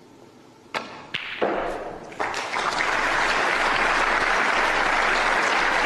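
Snooker cue striking the cue ball, followed by a few sharp clicks of balls colliding. About two seconds in, audience applause swells and holds steady for the potted ball.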